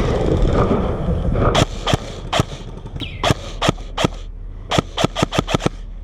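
Airsoft rifle fired in single shots, about a dozen sharp cracks spaced unevenly and quickening near the end, shortly before the shooter runs out of ammunition. A rustling noise fills the first second or so.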